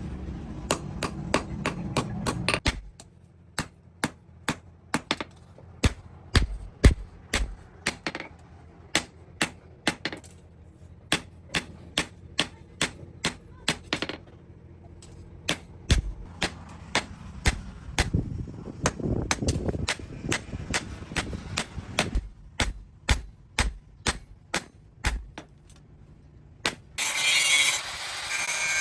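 Blacksmith's hand hammer striking metal in a long run of sharp blows, about two to three a second, with short pauses between runs. Near the end the hammering stops and a steady rasping noise of metal being worked takes over.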